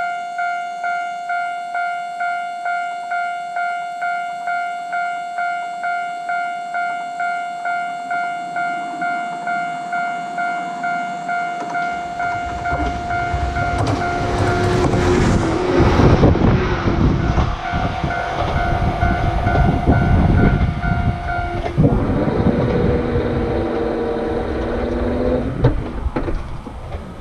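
Japanese level-crossing warning bell ringing in a steady pulse, about two strokes a second. About twelve seconds in, a JR 113 series electric train comes over the crossing: a loud rumble with wheels clattering over the rail joints covers the bell. The bell stops a little after twenty seconds, and the train's noise dies away near the end.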